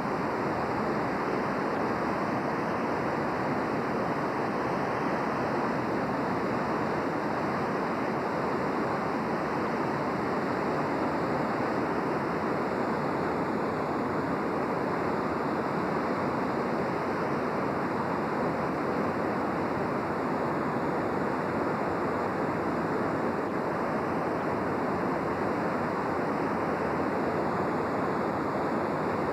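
Steady, unbroken rushing of a river swollen by floodwater.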